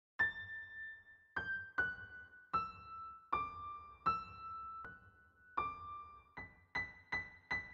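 Intro music: a slow melody of single high keyboard notes, each struck and left to ring and fade. The notes mostly step downward in pitch, then turn to quicker repeated higher notes near the end.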